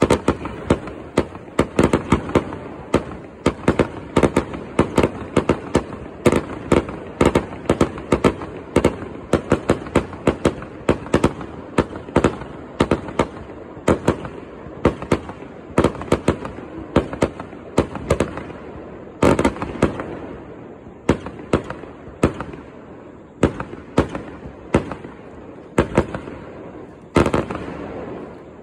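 Fireworks display: a rapid barrage of aerial shells bursting, several bangs a second, each with a trailing echo, thinning out near the end.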